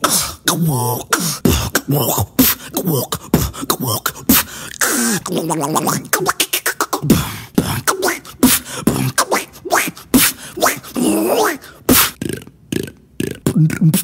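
Human beatboxing: a mouth-made robot-voice effect of wavering, gliding electronic-like tones over a fast beat of vocal clicks and drum hits.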